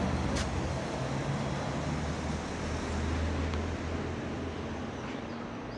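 Street traffic noise: a car engine's low hum, strongest midway and fading near the end, over a steady rush of road and outdoor noise.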